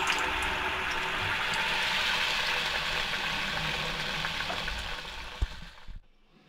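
A round of vada dough deep-frying in hot oil in a kadhai, the oil bubbling around it with a steady sizzle. One sharp tap comes just after five seconds, and the sizzle cuts off suddenly about a second before the end.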